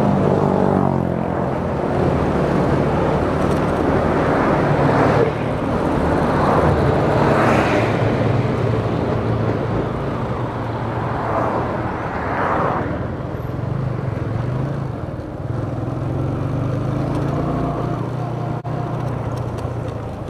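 Motorcycle engine running steadily while riding in city traffic, with wind and road noise and a few louder swells as other vehicles pass.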